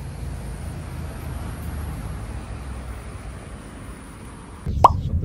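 Steady low rumble of outdoor background noise, like traffic, building slightly over the first couple of seconds. Near the end it cuts abruptly to a louder rumble with one short, sharp rising chirp.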